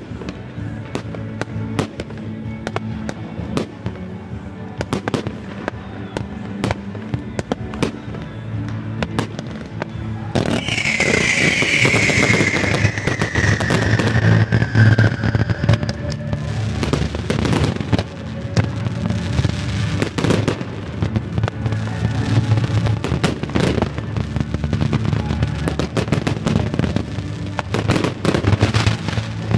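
Fireworks display: a rapid string of shell bursts and crackles that grows louder about ten seconds in, with music playing along.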